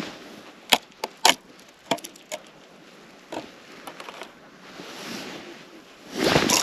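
Handling noise as a fish is pulled up by hand on a tip-up's line through a hole in the ice. A few sharp clicks and knocks come in the first couple of seconds, then lighter ticks, then louder rustling and scuffing near the end.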